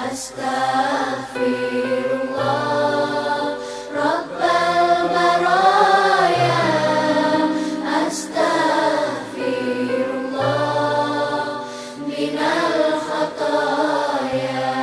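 Background music: a sung, chant-like vocal line in phrases of a few seconds over a steady held drone.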